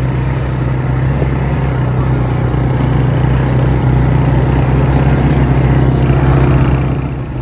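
A motor vehicle's engine running steadily, a constant low drone with no speech over it.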